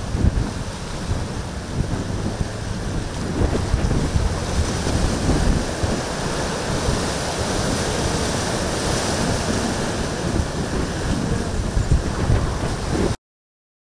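Wind buffeting the microphone over the steady rush of rough surf breaking. It cuts off suddenly near the end.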